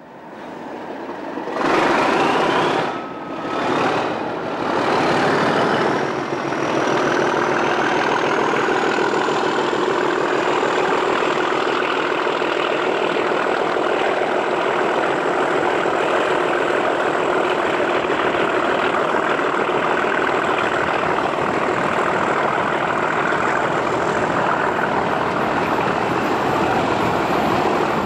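The turbocharged English Electric V12 diesel engine of a Class 37 locomotive opening up and working hard. The engine sound builds over the first couple of seconds. A turbocharger whistle rises in pitch for several seconds, then holds steady over the engine's steady hard running.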